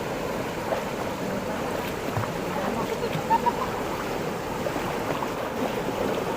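Steady rush of stream water pouring over rocks, with two short knocks about halfway through.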